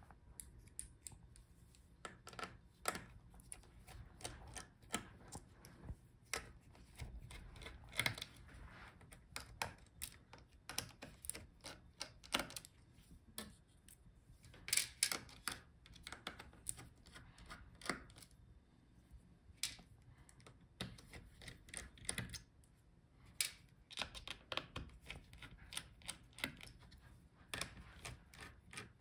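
Small screwdriver turning out the screws of a laptop's copper heat-pipe heatsink: faint, irregular light clicks and ticks of metal on metal, with a few louder clusters.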